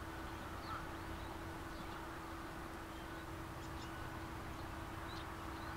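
Faint rural outdoor ambience: a steady low hum under an even background hiss, with scattered short, high bird chirps.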